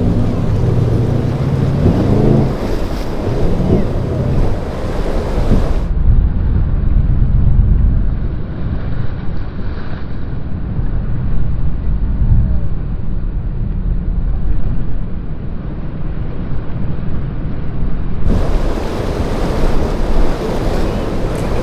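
Powerboat engines running under surf crashing against the hull, with wind buffeting the microphone. The mix is loud and steady throughout.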